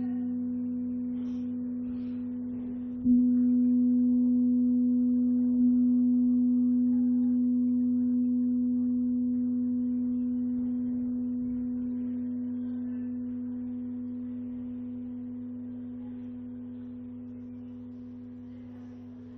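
Ambient computer-generated music from a light-driven sound installation, its notes set in real time by the room's light level read through a photoresistor. A low, bell-like ringing tone fades slowly; about three seconds in it is struck again and jumps up sharply, with a softer strike a couple of seconds later.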